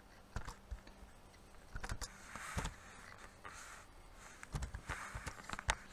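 Faint, scattered clicks of a computer mouse and keyboard, about eight in all, as a ladder-logic contact is placed and a tag name is typed.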